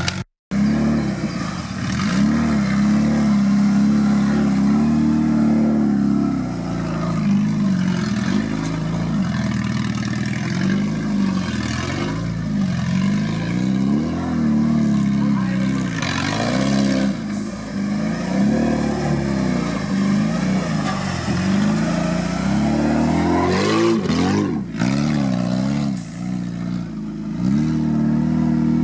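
Suzuki Samurai 4x4's engine revving up and down over and over as it climbs and drops over rough off-road ground. The pitch rises and falls every second or two.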